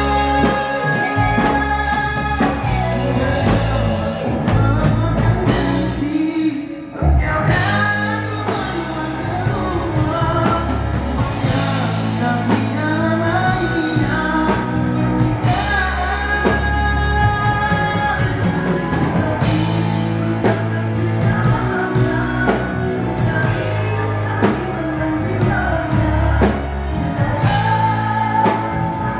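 Rock band playing live with a male singer, guitars and drum kit, at a sound check; the music breaks off briefly about six and a half seconds in and comes back in with a hit.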